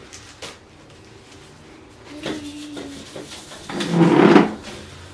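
Kitchen oven and metal bakeware being handled to take out a baked cake: a few clicks and a short squeak about two seconds in, then a louder metallic scraping clatter about four seconds in.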